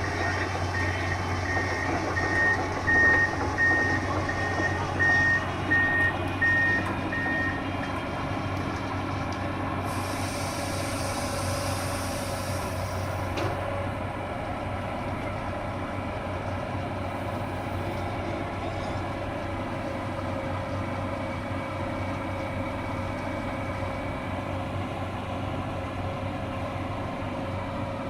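Excavator engine running steadily while its travel alarm beeps about twice a second for the first seven seconds or so. A hissing noise joins in about ten seconds in and lasts about three seconds.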